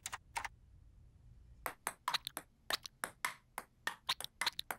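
A brief patter of computer keys, then a table-tennis rally: the ball clicks quickly and irregularly off the paddles and the table.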